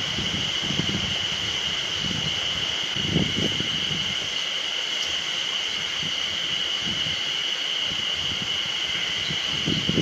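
A chorus of spring cicadas calling as one continuous high buzz, with low rumbles of wind on the microphone, the strongest about three seconds in.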